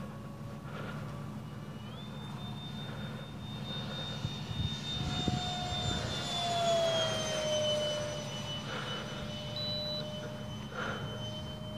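Dynam Me 262 RC jet's twin electric ducted fans whining as it flies by on a low pass. The whine gets louder and drops in pitch about six to eight seconds in as the plane passes.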